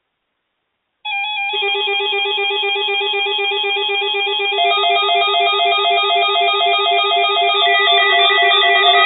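Music: several rippling, warbling notes over a steady low tone, starting abruptly about a second in after silence and growing slightly louder partway through.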